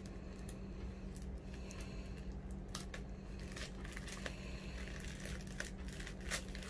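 A small packaging bag holding drone propellers crinkling and crackling as it is handled and opened by hand, in scattered short crackles. A steady low hum runs underneath.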